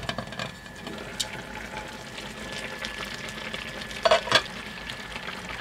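Fish pieces in broth simmering in an uncovered pan, the liquid bubbling and sizzling steadily, after a click as the glass lid is lifted off at the start. Two brief louder sounds come about four seconds in.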